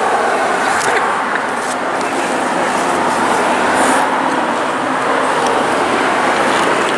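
Steady rushing noise of road traffic going by, building slightly over the first few seconds and then holding.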